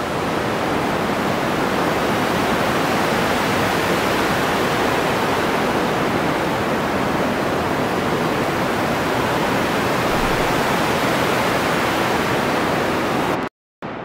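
Synthesized ocean-wave sound: a steady rushing noise shaped by an automated low-pass filter and sent through a very large church reverb. It cuts off suddenly near the end when playback stops.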